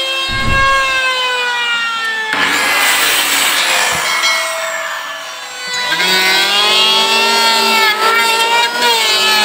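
Power-tool motors working wood: a handheld circular saw's motor whine slowly dropping in pitch, then cutting through a board in a burst of noise about two seconds in, followed after a break by an electric hand planer's motor running, its pitch dipping as it bites into the timber.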